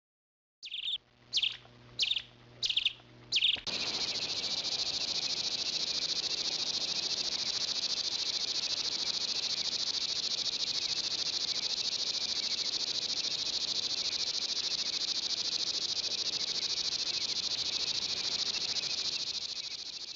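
Five short, sharp high calls about two-thirds of a second apart over a low hum, then a continuous, high-pitched insect trill that runs on unbroken and fades out near the end.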